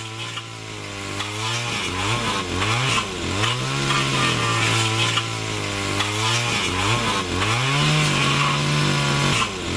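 Chainsaw running as it carves wood. Its engine note drops sharply and climbs back several times as the chain loads up in the cut.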